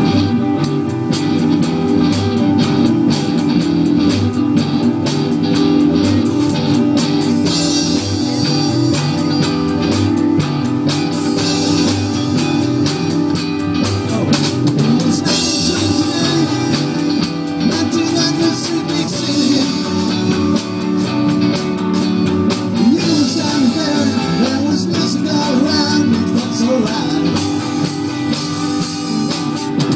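Live rock band playing an instrumental intro on electric guitars, bass and drum kit, loud and steady throughout.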